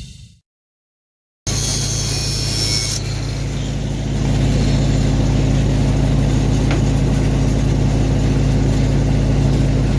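An engine running steadily at a constant speed, cutting in about a second and a half in after a brief silence.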